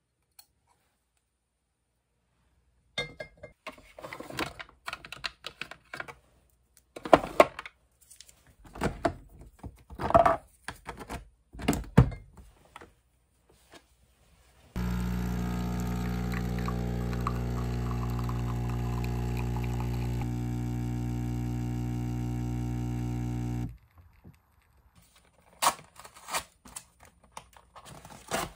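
Capsule espresso machine's pump running with a steady electric hum for about nine seconds as it brews into a glass, starting and stopping abruptly. Before it, a string of clicks and knocks from handling the cup and machine.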